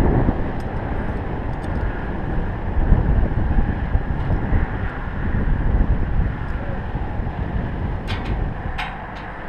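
Wind buffeting the microphone, a steady, gusting low rumble, with two sharp clicks near the end.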